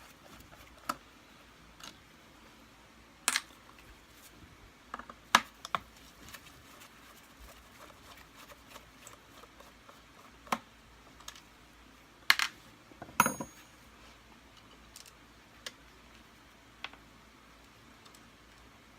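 Irregular small clicks and taps of a screwdriver and screws being worked out of the rear of a Kirby Sentria II vacuum cleaner, with parts handled and set down. A few louder knocks come about two-thirds of the way through.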